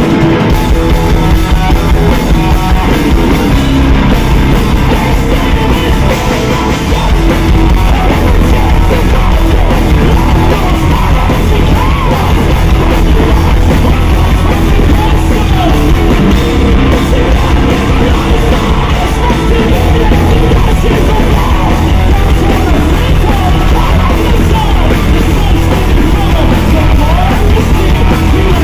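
Live post-hardcore band playing loud: distorted guitars, bass and drums with shouted vocals.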